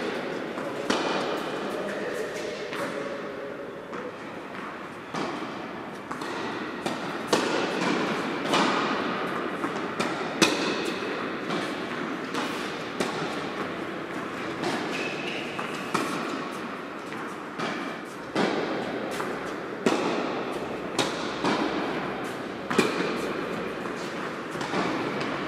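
Tennis balls being struck by rackets and bouncing on an indoor hard court, irregular sharp hits that echo in the large hall.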